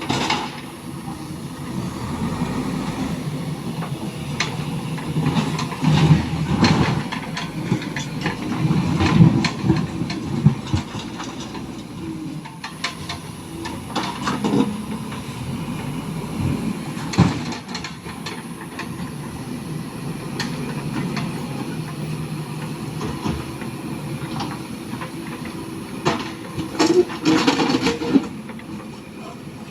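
JCB 3DX backhoe loader's diesel engine running under working load, broken by repeated clanks and knocks, heaviest in a cluster several seconds in and again near the end.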